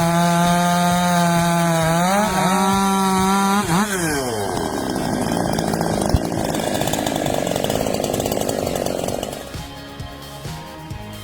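Husqvarna 371 XP two-stroke chainsaw running at high revs with a steady pitch, which dips and recovers twice. About four seconds in, the pitch falls as the chain bites into the wood. It then cuts with a rough, grinding sound for about five seconds and eases off near the end.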